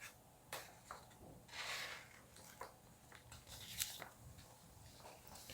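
Near-quiet room tone with a few faint, sharp clicks and a soft breath-like hiss about one and a half seconds in.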